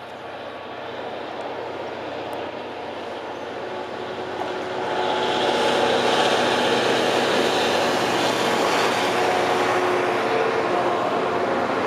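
A Class 66 diesel freight locomotive, with its EMD two-stroke V12 engine, running as it draws near and passes, getting louder until about five seconds in and then staying loud. Loaded coal hopper wagons follow it along the rails near the end.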